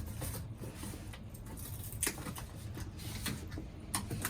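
Handling noises: a few short knocks and scrapes, about two seconds in, past three seconds and near the end, over a low steady hum.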